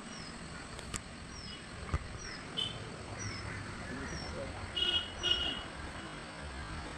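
A bird repeating a short, high, falling note about once a second, with two louder calls in quick succession about five seconds in, over a steady outdoor hiss.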